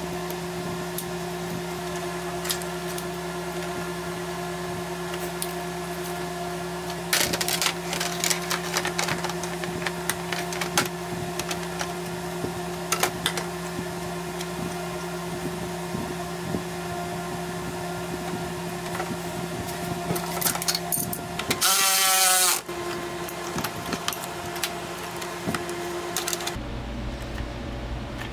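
Hands fitting plastic cooling-system parts and hoses into a car's engine bay: scattered clicks, snaps and knocks over a steady background hum. About three-quarters of the way through, a cordless drill runs for about a second, the loudest sound.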